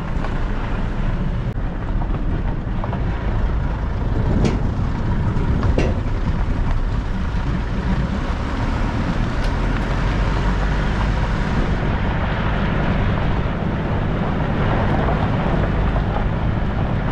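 Steady engine and road noise of a vehicle on the move, with a couple of short knocks about four and six seconds in.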